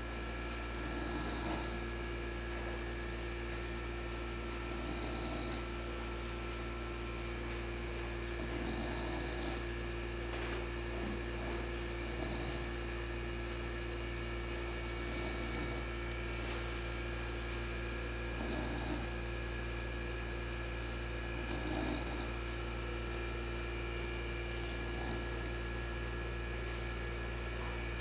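English bulldog snoring softly at rest, a breath roughly every three to four seconds, over a steady electrical hum.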